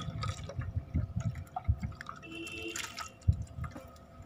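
Water poured into a plastic bottle and running out through holes in its side, splashing and dripping irregularly into a metal tray, with a sharp click about three seconds in.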